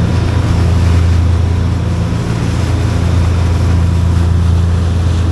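Motorboat engine running steadily under way, a loud low drone with a hiss of rushing water and wind above it.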